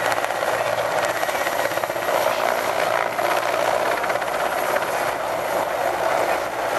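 Mil Mi-17 helicopter's twin turboshaft engines and main rotor during a low pass close overhead: a steady, loud running noise.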